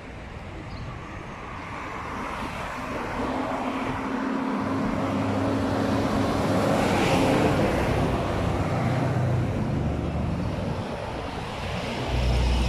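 Road traffic on a multi-lane highway: tyre and engine noise that swells to its loudest about seven seconds in as a heavy dump truck passes close by, with a steady engine drone.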